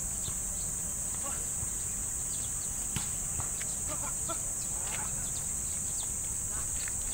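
Outdoor ambience: a steady high hiss with scattered faint chirps and ticks over a low rumble, and one sharp click about three seconds in.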